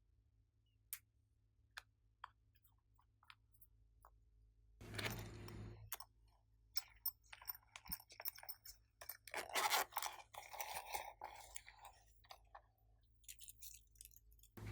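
Slime being handled by hand: sparse sticky clicks and pops at first, then denser crackling, squishing and clicking as it is pressed and stretched, loudest about two-thirds of the way in.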